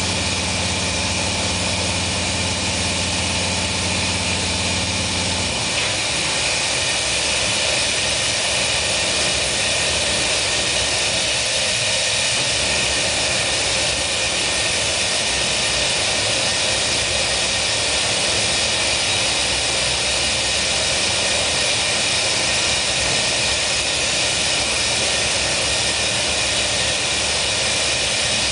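Burners of a glassblower's reheating furnace (glory hole) running with a steady rushing hiss. A low hum underneath stops about five and a half seconds in.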